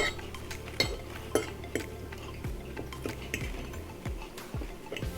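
Cutlery clicking and scraping against plates and food containers during a meal: irregular short taps and clinks, several a second at times.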